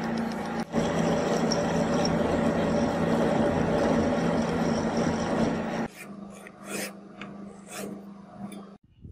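Metal lathe turning down a rusted steel bolt: steady motor hum under the harsh rasp of the cutting tool on the metal. About six seconds in the cutting noise drops away, leaving the lathe running quieter with a few short sharp scrapes, then the sound cuts off suddenly near the end.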